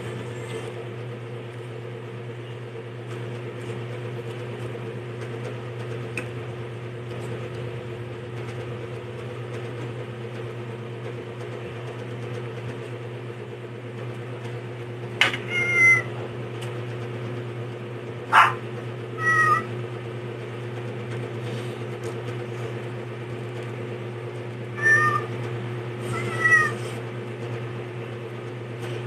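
A steady low hum runs throughout. Over it come a few short, high-pitched animal calls that bend downward in pitch, in pairs about halfway through and again near the end, with a couple of sharp clicks among them.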